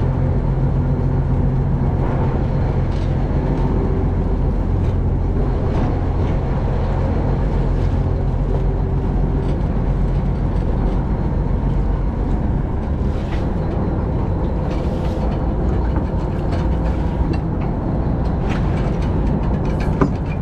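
Fishing boat's engine running steadily, a loud constant low drone, with a single sharp knock just before the end.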